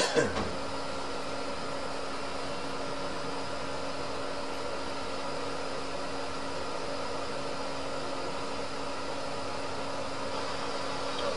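A sharp knock at the very start, then a steady room hum: an even hiss with a constant low tone under it, the kind a fan or air-conditioning unit makes.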